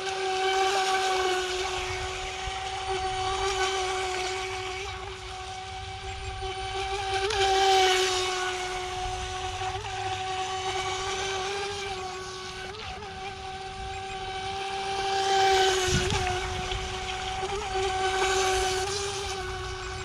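Hosim 3S electric RC speedboat running at steady full throttle: a steady motor whine over the hiss of the hull and spray, swelling louder four times as the boat passes nearer. It is still running on a battery that the transmitter has flagged as low.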